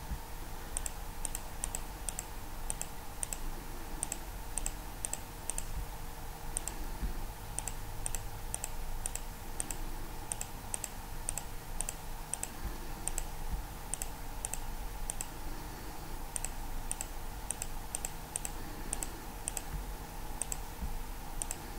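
Computer mouse button clicking over and over, about two clicks a second and often in quick pairs, as items are selected one by one. A faint steady hum runs underneath.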